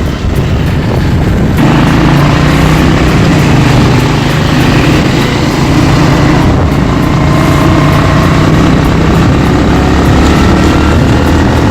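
Vehicle engine running steadily with road noise while moving through city traffic. The engine hum grows stronger about a second and a half in.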